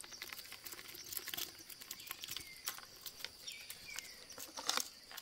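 Faint scattered ticks and light patter over a steady high-pitched background hum, with a couple of short falling chirps in the middle.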